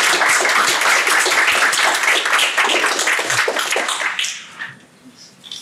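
Audience applauding, many hands clapping at once; the applause fades out about four seconds in.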